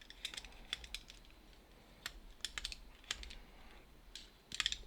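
Irregular light metallic clicks and taps as a screwdriver and small greased ball bearings are worked into the body of an Abus 289/50 padlock. There is a quick cluster of clicks near the end.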